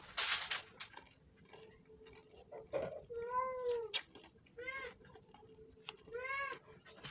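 A domestic cat meowing three times, each a short call that rises and falls in pitch. A short, loud rustling noise comes just after the start.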